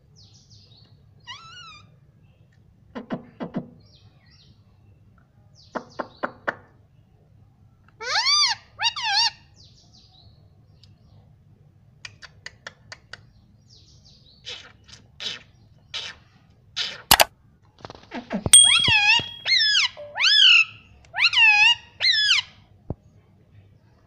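Indian ringneck parakeet calling: a few rising-and-falling calls, then a loud run of them near the end, with short bursts of rapid clicks in between and one sharp click.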